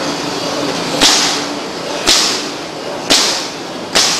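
Pneumatic nail gun firing four times about a second apart into a wooden packing crate, each shot a sharp crack followed by a short hiss of air.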